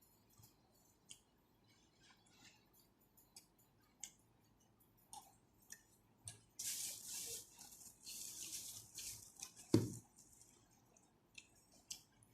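Close-up eating sounds over a bowl of rice vermicelli bone soup: small scattered mouth and utensil clicks, then about three seconds of slurping, ended by one sharp knock.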